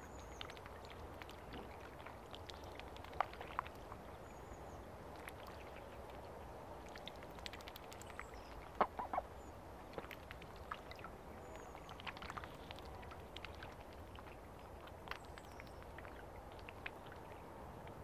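Ducks quacking now and then, short sharp calls with the loudest about three seconds in and a quick run of three about halfway through, over a steady faint hiss of outdoor ambience. A few faint high bird chirps come and go.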